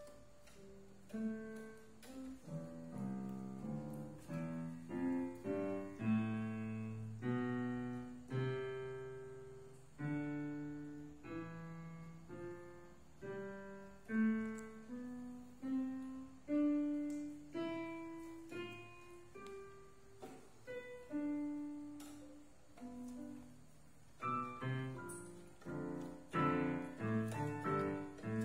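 Portable electronic keyboard in a piano voice playing a slow melody, each note struck and fading, with low bass notes under it; the notes come quicker and denser near the end.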